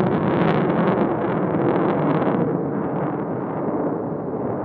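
Jet noise from a Lockheed Martin F-35A's single F135 turbofan as it flies overhead: a loud, crackling rumble that fades and loses its high end about halfway through.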